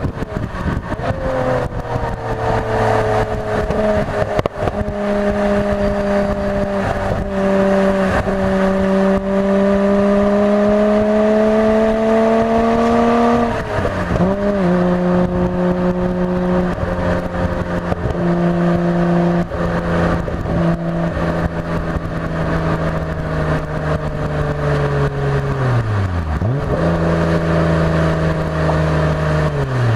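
Nissan Skyline GT-R R33's twin-turbo RB26DETT straight-six running hard at track speed. The engine note climbs slowly for the first dozen seconds, drops sharply about halfway through as at a gear change, and falls away twice more near the end.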